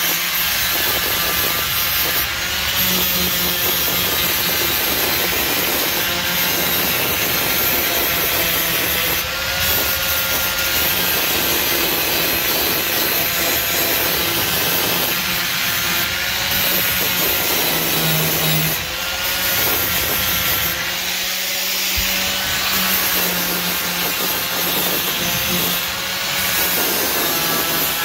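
Angle grinder running without a break, grinding down weld seams on a steel car floor pan. Its motor note dips and recovers every few seconds as the disc is pressed into the metal and eased off.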